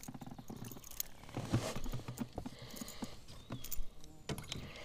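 Irregular light knocks and taps in a small boat as a freshly caught perch and the spinning tackle are handled.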